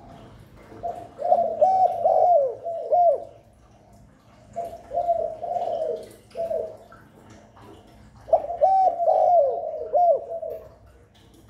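Spotted dove giving its cooing call: three phrases of several low, rolling coos each, about three and a half seconds apart.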